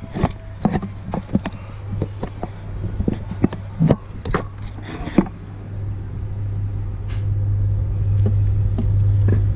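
A steady low motor hum that grows louder from about six seconds in, with scattered knocks and clicks through the first five seconds.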